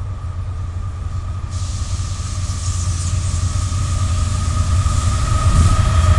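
Two GE AC4400CW diesel-electric locomotives approaching at the head of a freight train, their low engine rumble growing steadily louder, with a thin steady high whine above it.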